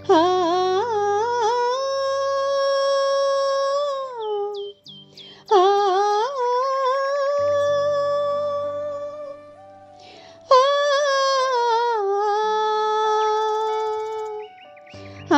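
Background music: a wordless hummed vocal melody in three long, sliding phrases over soft sustained low chords.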